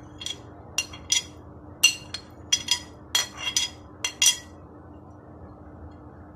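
Metal spoon clinking and scraping against a glass dish while scooping out diced green capsicum: about a dozen sharp clinks over roughly four seconds, then they stop.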